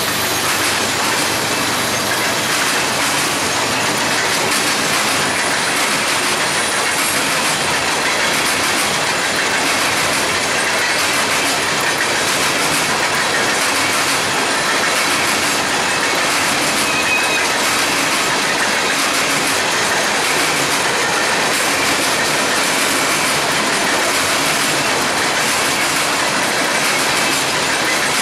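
Freight train cars rolling past close by: a steady, loud noise of wheels running on the rails, unbroken throughout.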